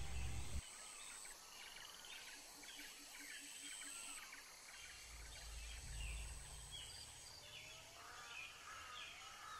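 Faint birds chirping and whistling in the background, many short calls, with a low rumble in the middle.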